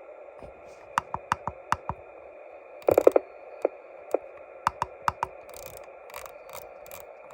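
Xiegu G90 transceiver's receiver hiss on sideband, steady through the speaker, under a series of sharp clicks in quick groups as the radio is tuned.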